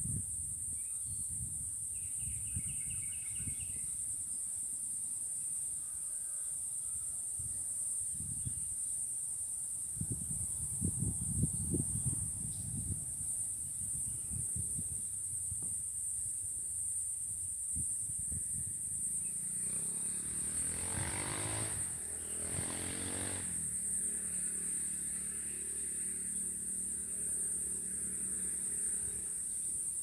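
Steady high-pitched drone of insects, with low gusts of wind on the microphone. An engine passes about two-thirds of the way through, its pitch rising and then falling.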